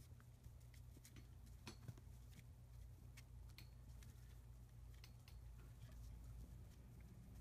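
Near silence: a low steady hum with faint, scattered ticks and rustles from a kitten batting a hanging ball toy inside a fabric cat bed.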